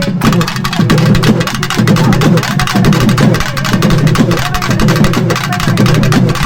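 Loud, fast drumming in a dense, rapid rhythm, with a wavering melody line over it.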